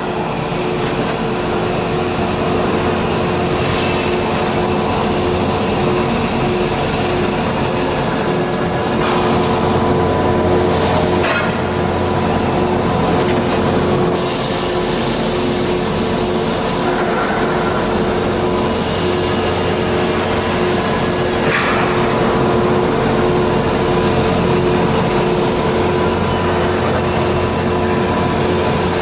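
Peddinghaus BDL 1250/9A structural steel drilling machine at work, its twist drill boring holes in steel channel. A steady mechanical hum with a pulsing tone runs under it, and stretches of high-pitched hiss come and go.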